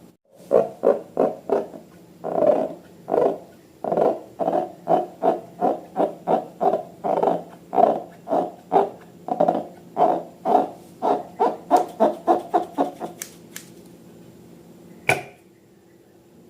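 Slime being squeezed and pressed by hand, giving soft squelching pulses about two to three a second. The pulses stop near the end, followed by a single sharp click.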